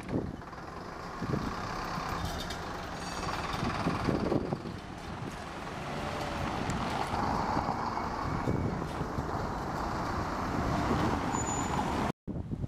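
Street traffic and heavy vehicles running at a road repair site: a steady engine rumble with scattered knocks. The sound cuts out for a moment near the end.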